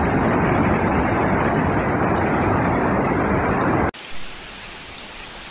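Muddy floodwater torrent rushing, a loud steady rush that drops off suddenly about four seconds in to a quieter, even hiss of water.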